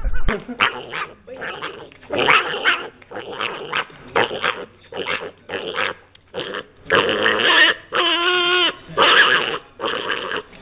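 A dog growling in repeated short bursts, with one longer wavering, pitched cry about eight seconds in.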